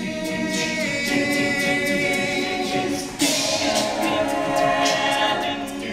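All-male a cappella group singing, backing voices holding sustained chords under the soloist. About three seconds in the singing swells suddenly louder.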